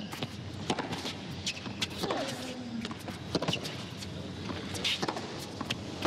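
Tennis rally: the ball struck back and forth with rackets in sharp pops, with a player's falling grunt on a shot about two seconds in.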